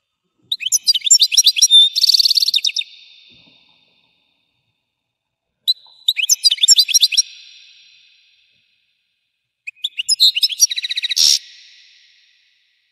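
European goldfinch singing: three separate bursts of rapid, high twittering notes ending in fast buzzy trills, each two to three seconds long with a short pause between, and each trailing off in an echo.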